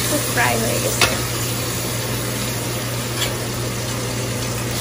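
Rohu fish steaks sizzling steadily in oil in a stainless steel frying pan, with a sharp click of a metal spatula against the pan about a second in.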